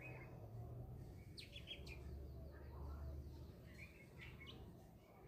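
Faint chirping of small birds: a few short high calls about a second and a half in and again near four seconds, over a low steady hum.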